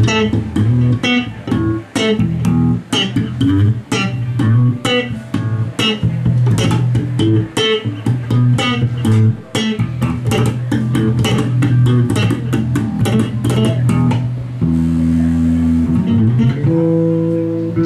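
Electric bass guitar played fast, a busy line of low notes with sharp percussive attacks. About fourteen and a half seconds in the sharp attacks stop and the bass holds a few long, steady notes.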